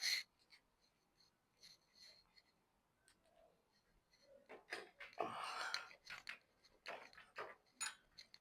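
Faint clicks and scraping of screws being tightened by hand with a screwdriver into an aluminium door, with a longer scrape about five seconds in.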